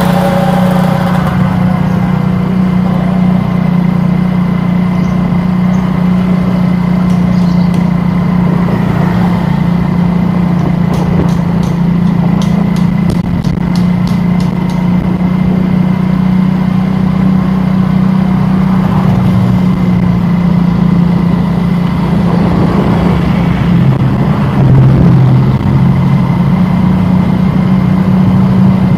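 A vehicle engine running with a steady low drone, with a run of faint light ticks about halfway through.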